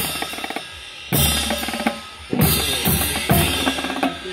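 Marching band drumline playing: rapid snare drum strokes under loud crash-cymbal hits that ring out, the first about a second in and more following.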